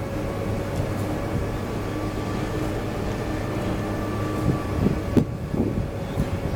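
Three-cylinder class 44 steam locomotive heard from some way off: a steady hiss with a held tone. About two-thirds of the way in, the exhaust beats of the locomotive pulling away begin as short, regular puffs that grow stronger.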